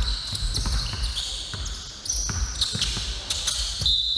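Basketball game play in a gym: a ball bouncing with repeated thumps on the court, and short high squeaks of sneakers on the hardwood floor.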